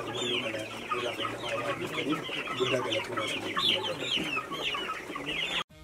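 A flock of hens clucking and calling, many short calls overlapping one another; the sound cuts off suddenly near the end.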